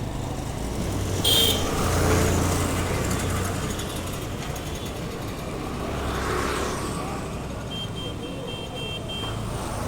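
Road traffic at a bus stop: vehicle engines rumble and pass, swelling twice. A brief sharp high hiss or squeal comes about a second in, and a quick run of short high-pitched beeps sounds near the end.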